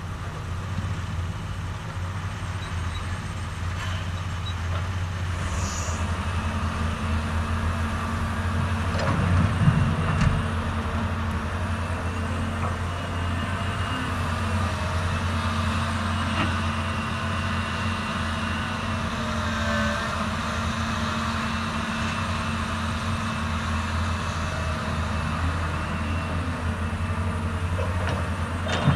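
Diesel engines of a CAT 320D RR excavator and a dump truck running steadily at work, with a constant low hum. There is a brief louder burst about ten seconds in.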